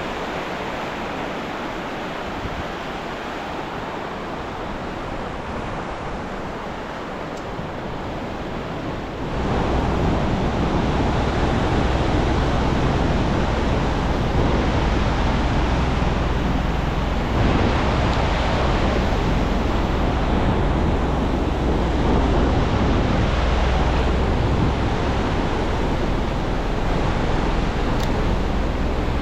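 Ocean surf washing onto the beach, with wind on the microphone. About nine seconds in it turns suddenly louder and a heavy low rumble sets in and holds.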